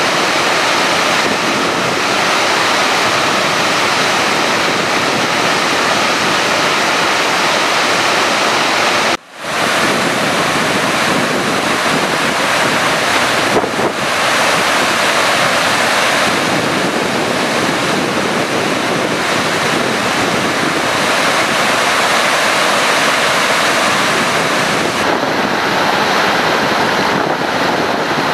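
Spill water from the overflowing Kandalama reservoir rushing and churning down its rocky spillway channel in a loud, steady rush. The sound cuts out for an instant about nine seconds in.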